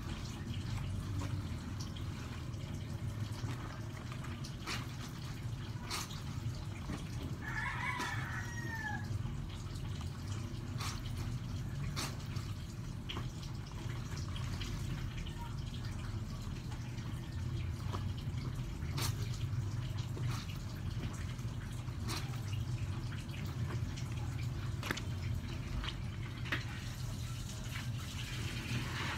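Clothes being hand-washed in a basin of water: wet cloth scrubbed and wrung, with splashing and drips, over a steady low hum. A brief animal call sounds about eight seconds in.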